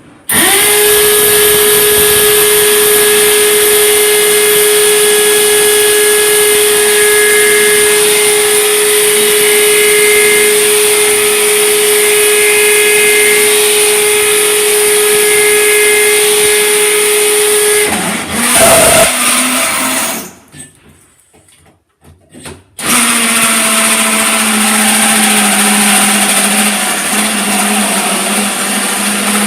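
Electric drill boring a hole through the metal of an electrical panel, its motor running steadily at one high pitch. About eighteen seconds in there is a brief louder burst and the drill stops. Two or three seconds later it starts again at a lower, slightly falling pitch.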